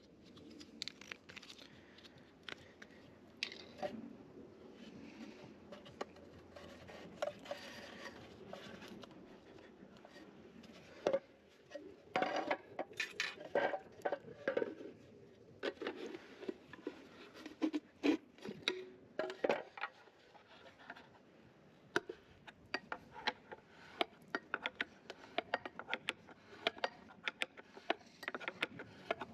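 Irregular clicks, knocks and scrapes of hand tools and parts being handled during heater repair work, busiest around the middle.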